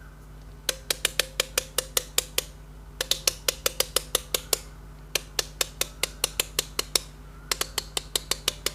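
Grind-adjustment dial of a Saint Anthony Industries Millwright hand coffee grinder being turned click by click, about six crisp clicks a second in four runs with brief pauses. The clicks are being counted to check the grind setting, which comes to 45 clicks.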